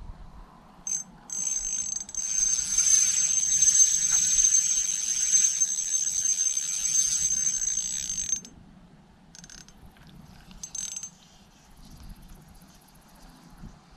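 Fishing reel being cranked, its gears whirring with a steady high whine for about seven seconds as the line and metal jig are wound in, then a few brief turns of the handle.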